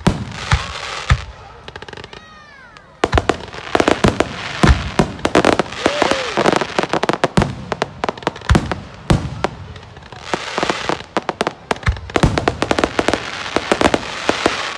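Aerial fireworks shells bursting: a few separate bangs, then from about three seconds in dense, rapid volleys of bangs and crackles that ease off briefly and build again.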